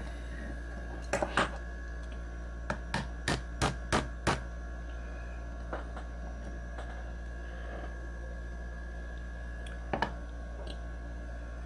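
Plastic mallet tapping a pin into a Springfield XD pistol: about eight sharp light taps in the first few seconds, then a few scattered fainter taps, one near the end.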